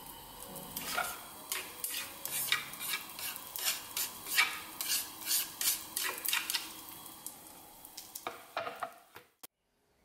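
Wooden spatula stirring and scraping diced food around a frying pan on a gas burner: a quick irregular run of scrapes and taps, about two to three a second, with a few last ones near the end.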